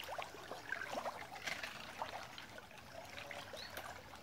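Shallow creek water sloshing and trickling with small splashes as someone wades and reaches down into it.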